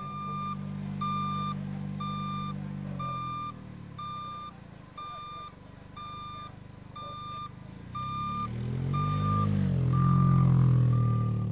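Warning beeper on an autonomous test car, sounding steadily about once a second with half-second beeps, over the car's engine. The engine runs steadily at first, fades, then comes back rising and falling in pitch and is loudest near the end as the car moves close by.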